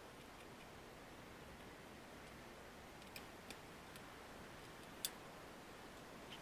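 Low hiss, nearly silent, broken by a few faint, sharp clicks and taps from work on a laptop's small plastic and metal parts, the loudest about five seconds in.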